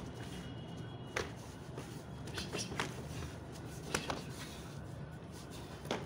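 Sparring bout between two barefoot fighters: about five sharp slaps of strikes landing and bare feet hitting concrete, with shuffling between them, over a steady low hum.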